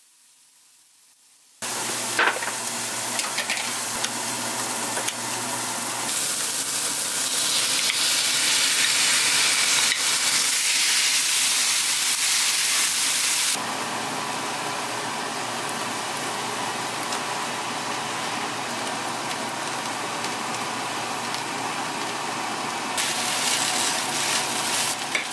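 Food frying in a nonstick frying pan, stirred with a wooden spatula: Spam, onion, kimchi and rice sizzling. The sizzle starts suddenly a moment in and grows louder and brighter about six seconds in. It drops back about fourteen seconds in and then holds steady.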